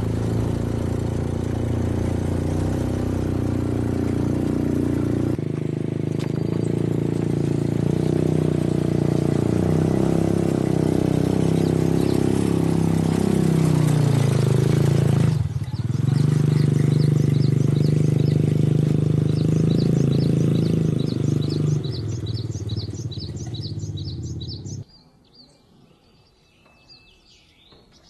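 Quad bike (ATV) engine running steadily as it rides along, its pitch falling once about halfway through. Near the end the engine sound stops and birds chirp.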